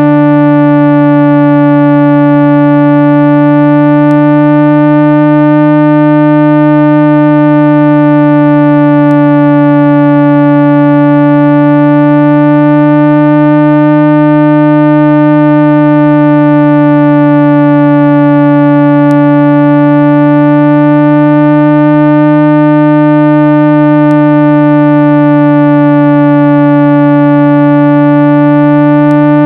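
A continuous 165 Hz speaker-cleaning tone: one steady low hum with buzzy overtones, held without a break. It is meant to make a phone's speaker vibrate and shake dust out of its grille.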